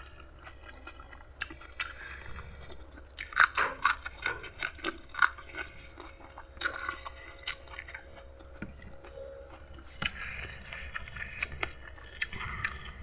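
Close-up chewing and crunching of food in the mouth, with runs of loud crunchy bites about three to five seconds in and again around ten seconds.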